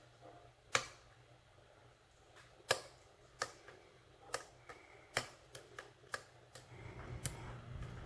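A steel hook pick working the pin tumblers of a cylinder lock under tension, giving about ten sharp, irregular metallic clicks as the pins are lifted and set. A low rumble of handling noise builds near the end.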